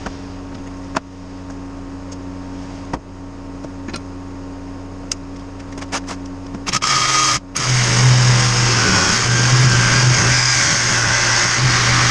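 A steady low hum with scattered sharp clicks. About seven seconds in, a loud power tool starts running, breaks off for a moment, then runs on steadily.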